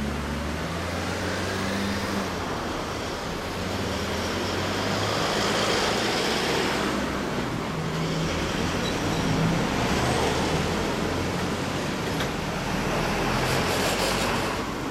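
BMW R1100S's 1085 cc boxer twin idling steadily through a Staintune stainless exhaust, with a low, uneven rumble, and the recording distorting.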